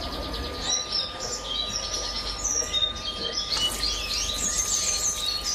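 European goldfinch singing: a quick, varied run of high twittering and chirping notes.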